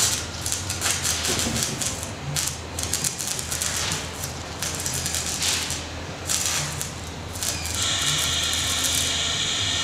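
Battery-powered stick welding arc, a rod fed from lithium batteries through jumper cables, crackling irregularly as the rod burns into the steel. About eight seconds in it settles into a steadier hiss.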